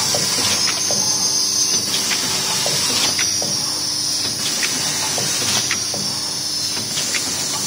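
Zipper-bag packing machine for snacks running: a steady hiss of compressed air with repeated clicks and knocks from its pneumatic cylinders and bag grippers.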